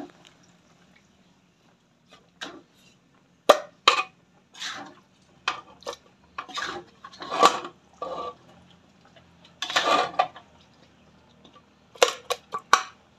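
Metal spatula scraping and knocking against an aluminium wok and cooking pot as cooked meat in thick sauce is scooped from one to the other. It comes in separate strokes with short gaps, with a few sharp clanks about three and a half seconds in and again near the end.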